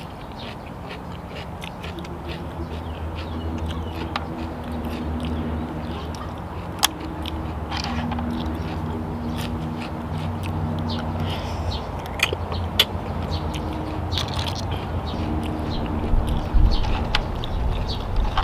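Eating boiled blood cockles: chewing, with sharp clicks as the shells knock against each other and against the metal tray while cockles are picked out. A low hum comes and goes underneath.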